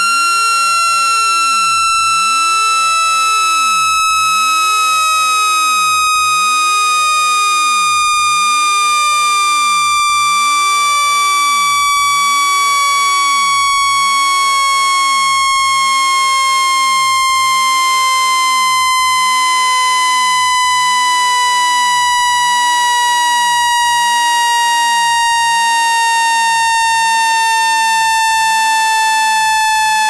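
Synthesized electronic tone with overtones, at a steady loudness and gliding slowly and smoothly down in pitch: a water-ejection sound played to vibrate water out of a phone's charging port.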